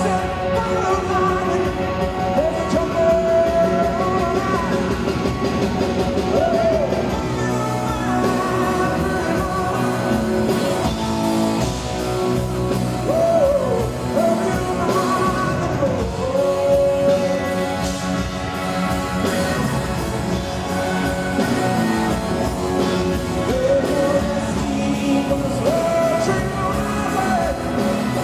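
Live rock band playing: a male lead voice singing over electric guitar and drums.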